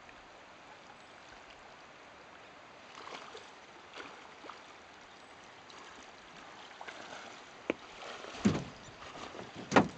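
River water running shallow and steady, with splashing and sloshing from wading through the water that gets louder near the end, with two heavy splashes.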